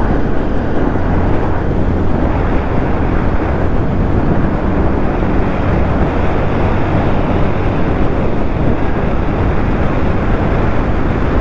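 Steady wind rush on a rider's camera microphone over a motorcycle engine running at highway speed, the bike picking up from about 70 to 80 km/h.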